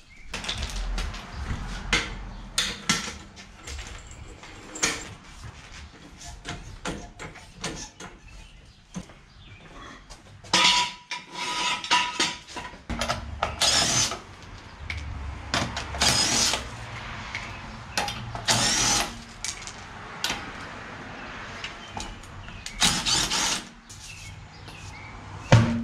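A front wheel coming off a car: a floor jack lifting the corner, then a string of short power-tool bursts and metal clanks as the lug nuts are removed and the wheel is pulled.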